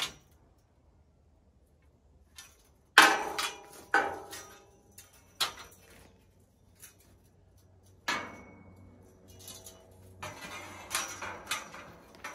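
Metal scaffolding parts being handled, clanking and knocking together, each strike ringing briefly. There are a few separate knocks, loudest about three and four seconds in, then a quicker run of clanks near the end.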